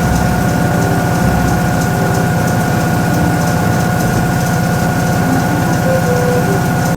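Toshiba ZABOON top-loading washing machine running: a steady motor hum with a constant whine, unchanging throughout.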